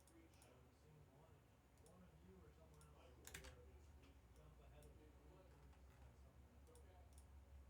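Near silence over a low electrical hum, with faint scattered clicks; one sharper click about three seconds in.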